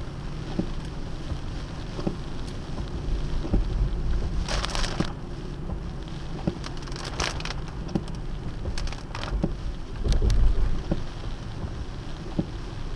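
Car windshield wipers knocking at each stroke, about every one and a half seconds, over steady in-cabin road and rain noise on a wet road. A few brief hissing swells of water spray come through mid-way, and a louder low rumble about ten seconds in.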